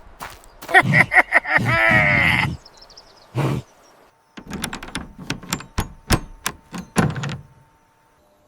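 An animal's bleating call, stuttering at first and then drawn out with a falling pitch, followed by a run of sharp clicks and knocks.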